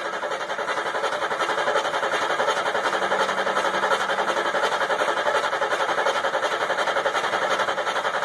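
A Ford Bronco engine being cranked over by its starter motor, chugging evenly and rapidly without catching. The engine has sat for a year and a half, and the men starting it think no fuel has been pumped up to it yet.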